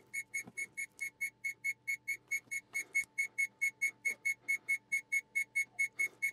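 Small electronic beeper giving short, high, identical beeps in a fast even series, about six a second, with a faint steady electronic hum underneath.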